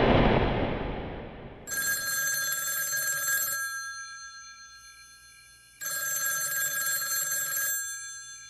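Rotary-dial telephone bell ringing twice, each ring about two seconds long with a pause between. It follows a loud rushing roar that fades out over the first second or so.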